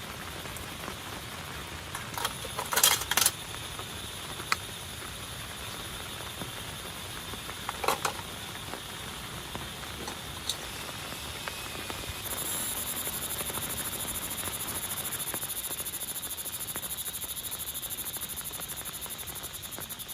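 Steady rain with a few sharp clicks and knocks, clustered about two to three seconds in and again around eight seconds. From about twelve seconds in, a fast, high-pitched pulsing trill joins the rain.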